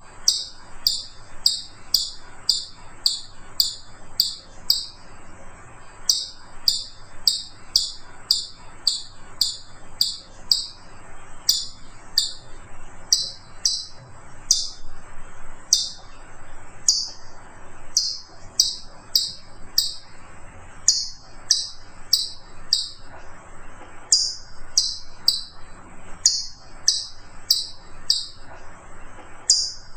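A bird repeating a short, sharp, high call about two to three times a second, in runs with brief pauses.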